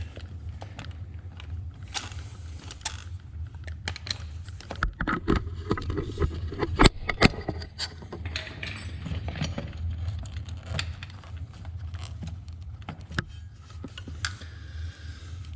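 Hand tools clicking, clinking and scraping against the metal throttle-cable fittings and throttle body of a Honda CRF110 in an irregular run of small knocks, with two louder clinks about seven seconds in, over a low steady hum.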